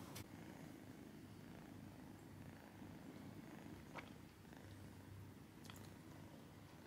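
Persian tabby kitten purring, faint and steady, with a couple of faint ticks.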